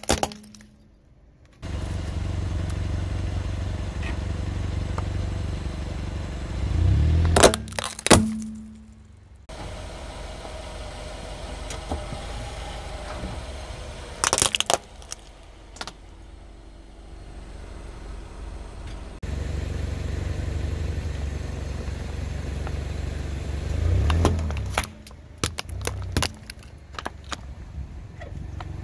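A car's tyre rolls slowly over plastic toys, which crack and snap under its weight, while the car's engine runs with a steady low rumble close by. Several crushings follow one after another: two loud cracks about seven to eight seconds in, another around fourteen seconds, and a cluster of cracks around twenty-four to twenty-six seconds.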